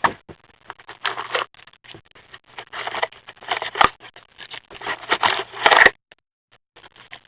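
Crinkling and tearing of a trading-card pack's wrapper as packs are opened by hand, in irregular bursts with a couple of sharp clicks.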